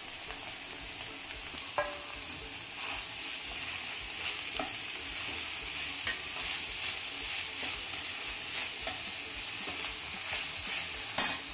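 Sliced vegetables sizzling in hot oil over a high flame while being stir-fried, with a steady hiss and a spatula scraping and knocking against the pan every second or two, the loudest knock near the end.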